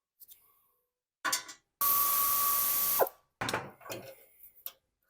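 Power driver backing out screws: a short burst about a second in, then a steady run of just over a second that drops in pitch as it stops. A few clinks and rattles of parts being handled follow.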